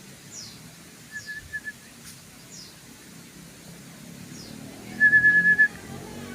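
Yellow-vented bulbul (trucukan) calling: a few quick notes about a second in, then a louder rapid trill on one pitch near the end. Faint high falling whistles come at intervals throughout.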